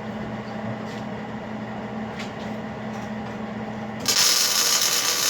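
Steady low hum of shop equipment, then a loud hiss about four seconds in that lasts about two seconds.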